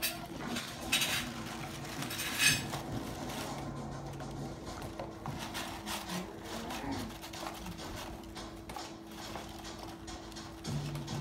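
Crumpled brown packing paper rustling and crinkling in a cardboard snuffle box as a dog noses and digs through it for hidden treats. There are sharper crinkles about a second in and again at two and a half seconds.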